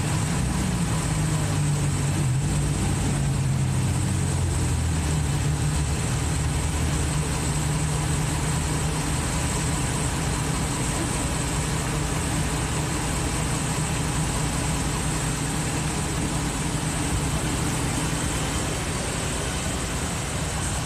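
A vehicle engine idling steadily, a continuous low drone with a faint high whine above it.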